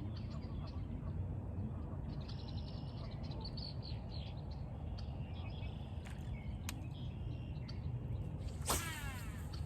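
Steady low rumble of outdoor background noise with small birds chirping, a few sharp clicks, and a brief swishing burst near the end.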